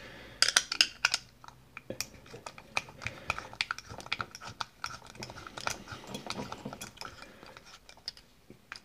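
Screwdriver turning a small Phillips screw in the steel cover of a padlock's Euro profile cylinder, with the part handled in the hand: a run of light, irregular metallic clicks and scrapes, loudest about half a second to a second in.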